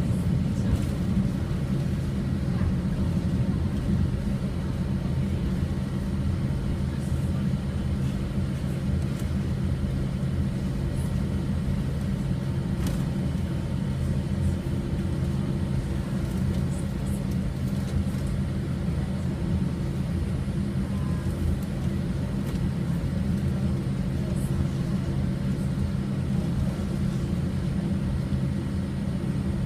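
Steady low drone of a Boeing 787-8 airliner, holding an even pitch throughout, with a few faint clicks.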